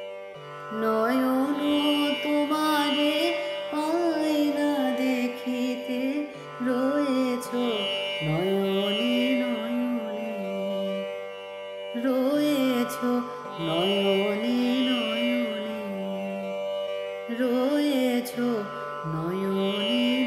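Music: a gliding, ornamented melody line in phrases of a few seconds over steady sustained drone tones.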